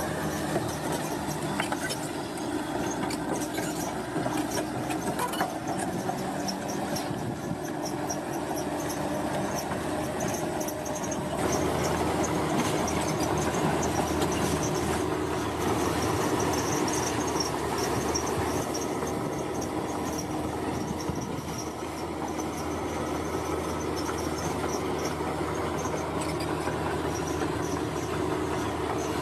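Bulldozer at work pushing soil: its diesel engine runs steadily under load while the steel tracks squeal and clank. The engine gets louder about a third of the way through as it works harder.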